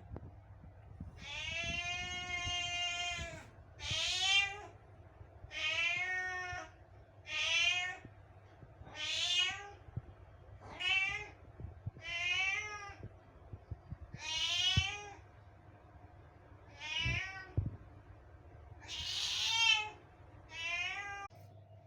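A cat meowing about eleven times in a row. The first call is the longest, at about two seconds, and the rest are shorter calls that rise and fall in pitch. The voice is odd enough to be likened to a saxophone.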